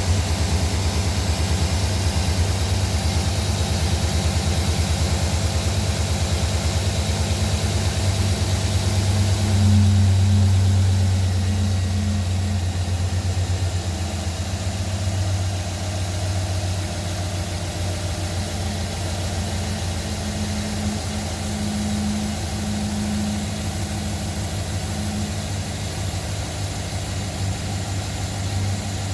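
2009 Chevrolet Silverado's engine idling after a cold start, with the knock that the owner reports. It gets louder for a few seconds about ten seconds in, then settles to a slightly quieter, steady idle.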